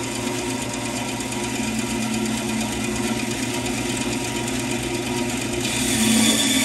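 Band saw running with a steady hum as its blade cuts into a wooden block; the cutting gets a little louder near the end.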